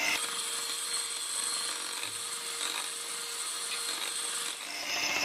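Electric hand mixer running steadily at speed, its twin metal beaters whisking thin cake batter in a glass bowl.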